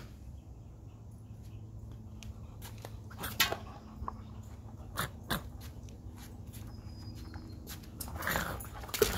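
Alaskan husky mouthing and chewing a toy ball, with scattered sharp clicks of teeth on the ball and a louder scuffling noise near the end.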